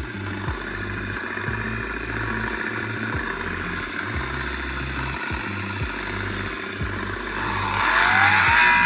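Electric motor of a PPA Brutalle 3.0 JetFlex sliding-gate opener running with a loud, abnormal mechanical noise and a low rumble that pulses about once a second; the noise is the fault under repair. Near the end a rising tone and music come in over it.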